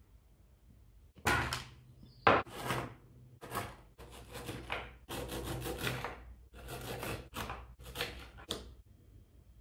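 A knife sawing through crisp Knoppers wafer bars on a plate: a run of short crunching strokes, with one sharp crack a little over two seconds in.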